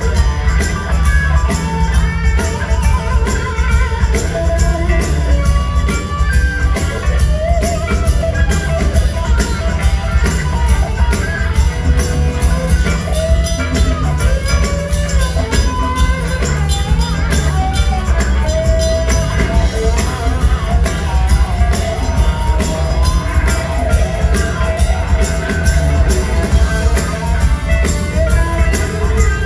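Live rock band playing a song: drums, bass, electric guitar, keyboards and horns, with a tambourine shaking over the beat and a melodic lead line weaving above the band.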